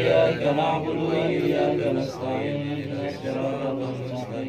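Male voices chanting an Arabic prayer recitation in long drawn-out notes.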